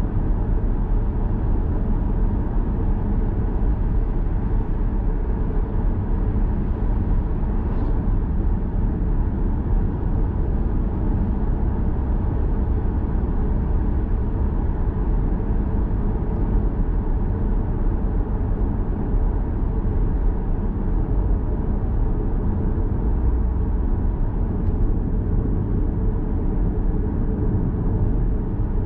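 Steady road and tyre noise of a 2011 Lexus GS450h hybrid sedan driving on the open road. It is a dull, even rumble, heaviest in the low end, with no change in speed.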